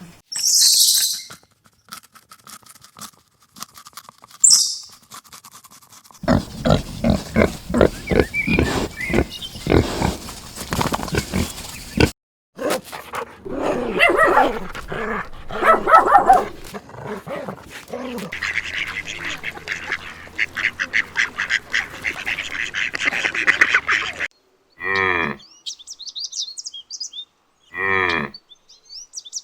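A string of different animal calls, cut one after another, with several abrupt changes of animal.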